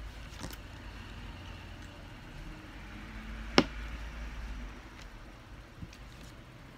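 Plastic LEGO minifigure pieces handled on a vinyl floor mat: a few small clicks and one sharp click about three and a half seconds in, over a faint low rumble that fades toward the end.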